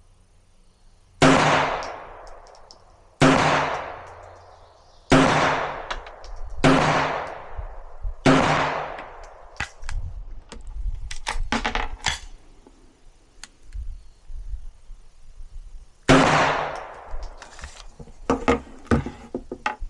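SIG Sauer Mosquito .22LR pistol firing five shots about one and a half to two seconds apart, each with a ringing echo tail, then several seconds of small metallic clicks and rattles of handling, and one more shot about sixteen seconds in followed by more clicks.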